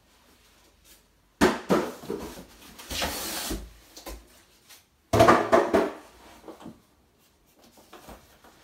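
Cardboard packing inserts being pulled and handled inside a large cardboard box: a sudden scraping rustle about a second and a half in, a sliding hiss around three seconds, and another loud scrape and rustle about five seconds in.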